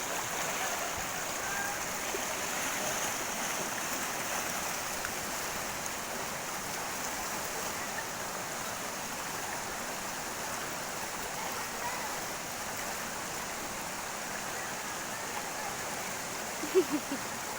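Steady rush of flowing water from a mountain stream or waterfall, with a few short, louder sounds about a second before the end.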